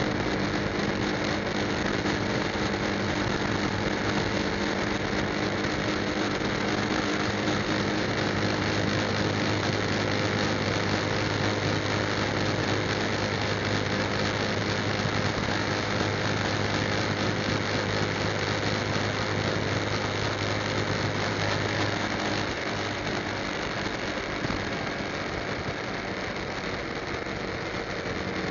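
Motorcycle engine running steadily at highway cruising speed under a constant rush of wind and road noise; the engine note eases off a little near the end.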